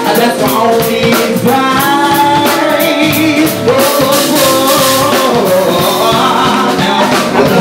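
Male soul singer singing live, backed by a band with a drum kit.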